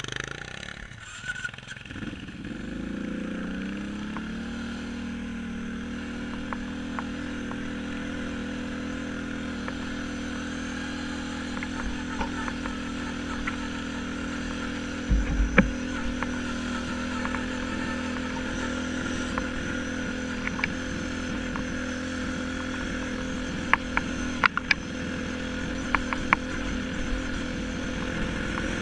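Kawasaki quad's engine pulling away, its pitch rising over the first few seconds and then holding steady at a cruise. Scattered knocks and rattles over it, with one heavy thump about halfway through and a cluster of sharp clicks near the end.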